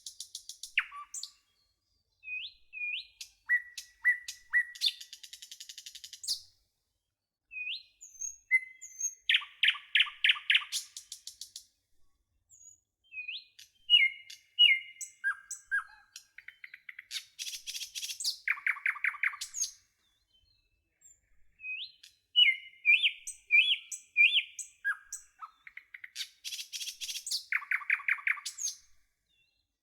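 Birdsong: a series of short chirps, quick downward-slurred notes and fast rattling trills, broken by brief complete silences.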